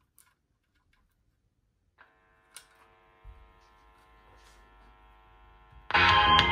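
A few faint clicks, then a faint steady electrical hum from the connected Sony SS-RV900 drivers. Near the end, music starts suddenly and loudly through the speakers as a test track plays.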